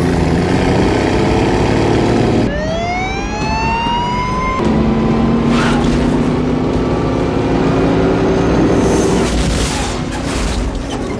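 Film soundtrack of a siren wailing in rising sweeps, then a heavy tow truck's diesel engine revving up as it accelerates, with a crash near the end.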